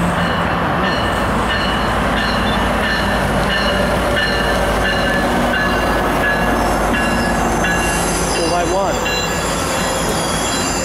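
Amtrak Pacific Surfliner passenger train, led by an F59PHI diesel locomotive, pulling into a station. Its bilevel cars roll past with a steady rumble and a high-pitched squeal from the wheels as the train slows.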